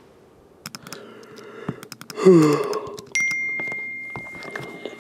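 Scattered clicks and knocks, then a short loud sound falling in pitch, followed by a single high ding that rings on and slowly fades.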